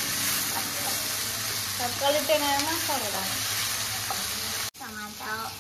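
Curry masala frying in hot oil in a pan: a steady sizzle that stops abruptly near the end.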